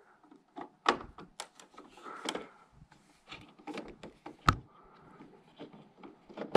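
Phillips screwdriver backing out the small screws that hold the lamp module in an Epson Home Cinema 3020 projector: a scatter of small clicks and plastic taps, with one sharper knock about two-thirds in.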